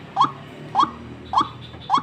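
White-breasted waterhen (ruak-ruak) calling: a short rising note repeated evenly about every 0.6 seconds, four times. These are the calls used as a lure for trapping waterhens.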